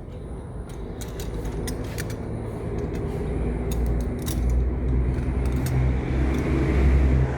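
Beads clicking and tapping over a low rumble that grows steadily louder and cuts off suddenly near the end.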